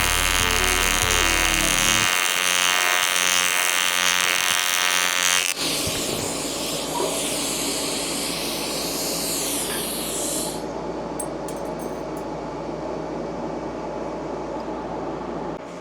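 Music for about five and a half seconds, then an abrupt cut to a steady hissing noise that thins out a few seconds later, with a few faint clicks.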